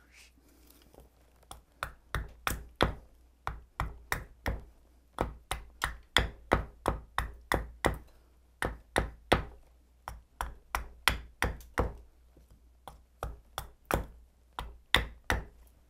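Hatchet chopping a wooden spoon blank held on a wooden chopping block: a quick, steady series of sharp strikes, about two or three a second, as the blade shaves wood off the spoon's handle. The strokes begin about a second and a half in and pause briefly once before going on.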